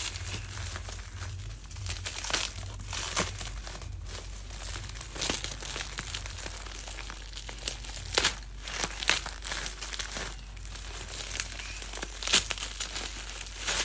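Packaging crinkling and rustling as it is handled and opened, with irregular sharp crackles, a few louder than the rest.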